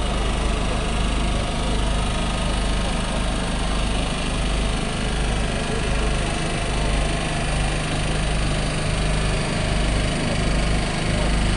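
Heavy-haul transport's engine running steadily with a deep low rumble as a multi-axle modular trailer carrying an oversize steel column rolls slowly past.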